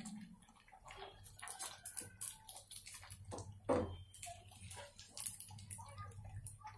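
Faint crackling and ticking of malpuas frying in hot ghee, with a sharper click near the middle as a slotted metal ladle presses a malpua against the pan to squeeze out the ghee.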